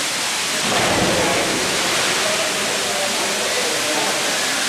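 Steady rush of water streams falling into a cenote pool, with distant voices echoing and a brief low bump about a second in.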